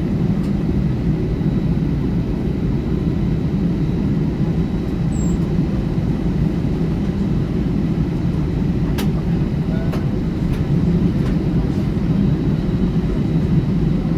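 ATR 72-600 turboprop engine running, a loud steady low drone heard from inside the passenger cabin, growing a little louder toward the end.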